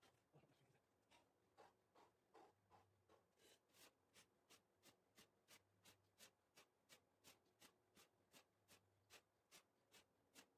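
Very faint, fast, regular ticking, about three sharp ticks a second, with softer knocks in the first few seconds: the sounds of a man getting up from push-ups and doing Hindu squats on foam mats, played four times faster than life.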